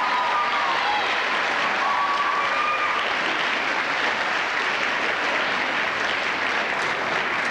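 Audience applauding steadily, with hands clapping close by. A few voices call out over the clapping in the first three seconds.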